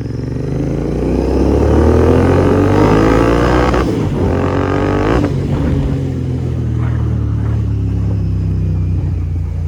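Royal Enfield Interceptor 650 parallel-twin running through a Red Rooster Performance aftermarket exhaust with its dB killer fitted, pulling hard under acceleration. The pitch climbs for about four seconds, drops at a gear change, climbs again briefly, then shifts once more and settles to a steadier, lower note.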